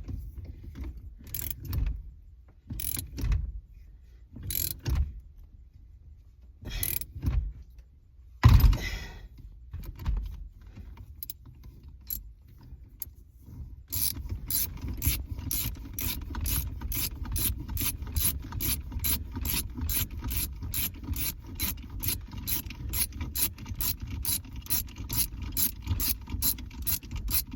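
Socket ratchet clicking as it turns the forcing screw of a puller drawing a steering wheel off its column. First come separate strokes about a second apart, with one louder knock about a third of the way in, then from about halfway a fast, even clicking about four times a second.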